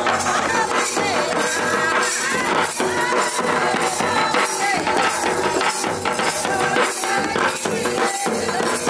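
Folk drumming: large barrel drums beaten with sticks in a fast, busy rhythm, with a wavering melody line above the drums.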